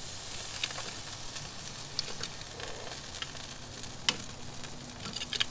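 Glaze-coated wild boar rib roasts sizzling on the hot grate of a Big Green Egg kamado grill, with scattered crackles and one sharper click about four seconds in.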